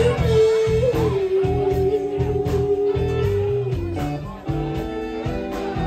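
Live band playing a slow blues-rock song, with drums, bass and electric guitar keeping a steady beat. A singer holds one long note, scooping slightly about a second in and letting it go near the fourth second.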